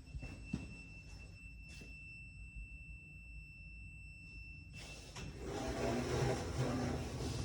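Orona Arca II gearless traction lift: a low hum from the car with a faint steady high tone, then about five seconds in the lift doors start sliding with a louder noise.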